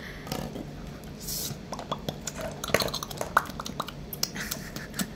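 Scattered light clicks and clatters of toy dishes and utensils being handled and set down.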